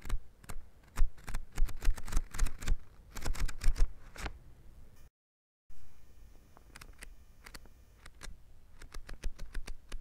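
Paper book pages flicking over one after another in a rapid run of crisp ticks and flaps, dense for the first four seconds or so. After a short stretch of dead silence about halfway through, the page flicks come more sparsely and more softly.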